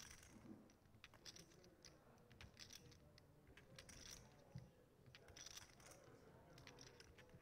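Faint, scattered clicking of clay poker chips being handled and shuffled at the table.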